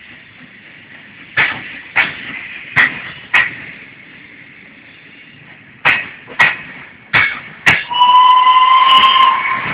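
Railway coaches rolling slowly past, their wheels clacking over a rail joint in pairs of knocks, eight in all, over a low rumble. Near the end a loud whistle sounds for just over a second.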